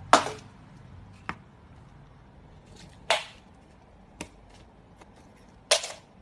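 A small plastic toy flicked and skidding across a wooden floor: three short scraping swishes, one at the start, one about three seconds in and one near the end, with two sharp clicks in between.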